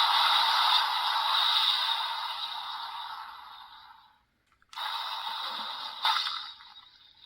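Sound effects played through the small built-in speaker of the Premium DX Boost Mark IX Raise Buckle, a Kamen Rider Geats transformation toy, in its Mark III mode. One effect fades out about four seconds in. After a brief silence a new effect starts, with a sharp hit about a second later, and then fades.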